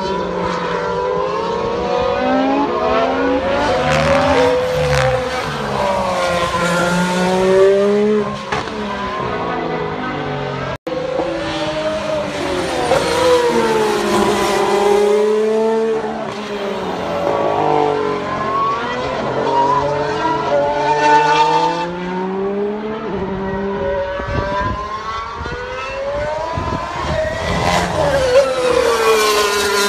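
2017 Formula 1 cars' turbocharged 1.6-litre V6 hybrid engines running on track, their pitch rising and falling over and over as the cars accelerate, change gear and slow for corners. The sound breaks off for a moment about eleven seconds in.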